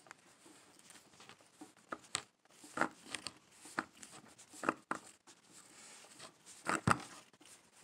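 Hands tying fishing line into a uni knot on a swivel close to the microphone: soft rustling broken by about five short taps and rubs, the sharpest near the end.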